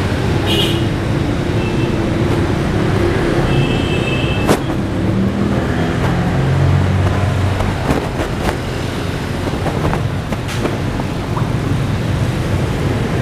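Steady road traffic: vehicle engines running, with a couple of brief high horn toots and a few sharp clicks.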